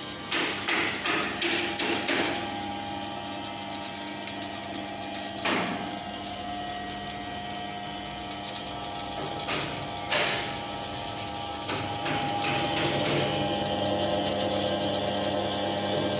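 Electric bone saw (a stainless-steel band saw for meat, bone and frozen fish) running with a steady motor hum. A quick series of sharp metallic knocks comes in the first two seconds, with single knocks around the middle and a few more later.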